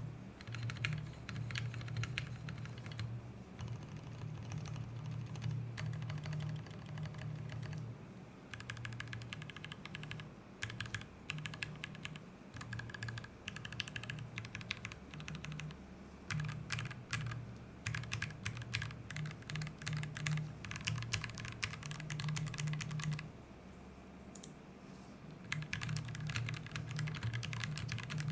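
Continuous typing on a mechanical keyboard fitted with Gateron Milky Yellow linear switches: fast runs of keystrokes and key clacks, broken by brief pauses.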